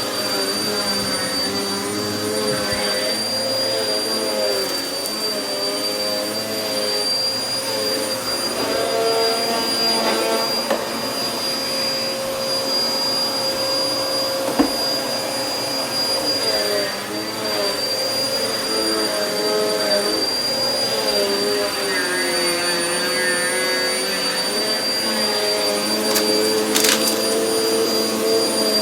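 Vacuum cleaner running steadily on carpet, its motor pitch wavering as it is pushed back and forth and picks up carpet powder. A short sharp click about halfway through, and a brief rattle near the end.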